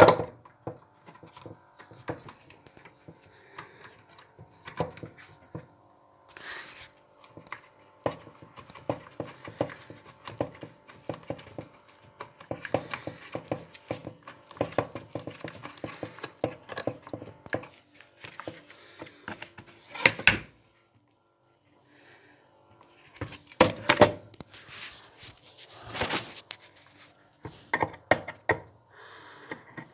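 Hand work on a car headlight assembly: irregular clicks, taps and scrapes, in louder clusters near the middle and toward the end.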